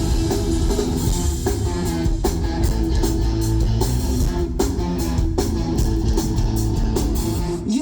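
Live rock band playing an instrumental passage between vocal lines: guitar over a drum kit, with no singing.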